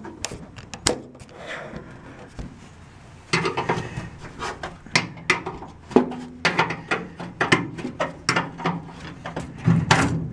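A wrench working the gear shift lever's mounting bolts on the steel floor of a 1964 VW bus, and the loosened bolts and shifter base coming free. A few metal knocks, then from about three seconds in a dense run of quick clicks and clanks.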